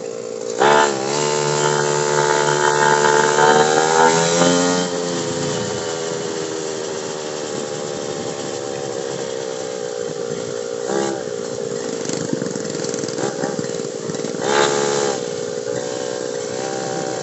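Motorcycle engine running while riding, its pitch rising and falling with the throttle over the first few seconds, then holding fairly steady. A few short rushes of noise come along the way.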